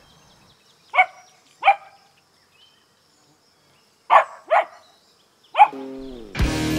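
A fluffy white spitz-type dog barking: five short, sharp barks, two close together, then another two, then a single bark.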